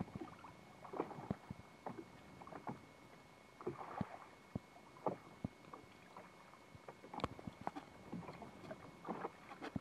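Water lapping and slapping against the hull of a small fishing boat at sea, with scattered sharp knocks and clicks on the boat and brief soft splashes about four seconds in and again near the end.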